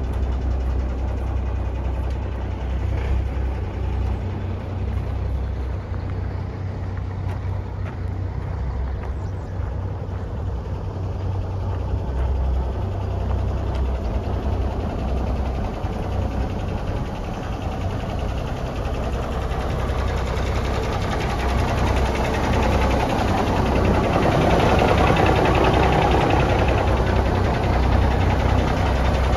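Cummins diesel engine of a heavy GMC Brigadier tandem-axle truck idling steadily, growing louder over the last several seconds.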